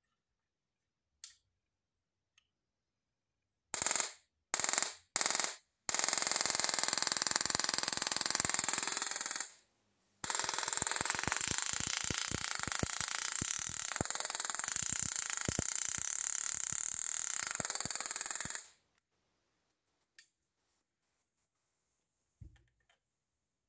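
Handheld battery-powered mini Tesla coil firing, its spark discharge buzzing and crackling with a high steady whine. Three short bursts come first, then two long runs of several seconds each, with a brief break between them, as the arc jumps from the coil's tip to a hand.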